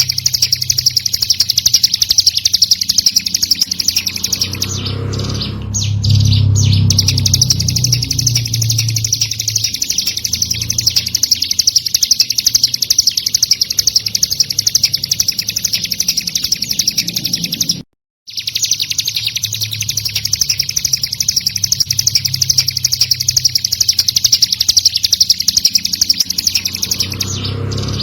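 Ciblek gunung, a prinia, singing a continuous, very rapid high-pitched trilling chatter. The song cuts out for a moment about two-thirds of the way through, and a low rumble sits under it now and then.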